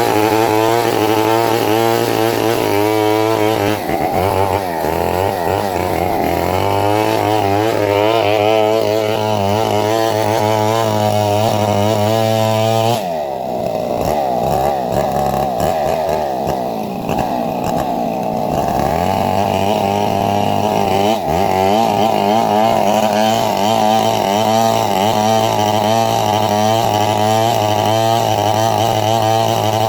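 Two-stroke chainsaw running under load, cutting a coconut palm. Its engine note sags and recovers as the chain bites, with an abrupt change in tone about halfway through.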